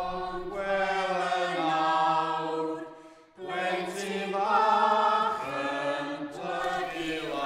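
Chapel congregation of men, women and children singing a hymn unaccompanied, in long held notes, with a short break between phrases about three seconds in.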